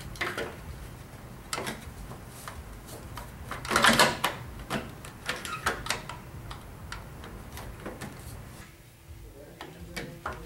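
Treadmill side bed covers being set down and pressed into place on the frame: a run of knocks and clicks, with a louder clatter about four seconds in.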